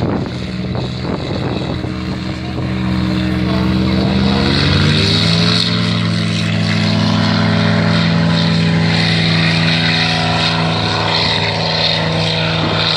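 Single-engine propeller light aircraft's piston engine droning as it flies low past. The pitch rises about five seconds in and then stays steady.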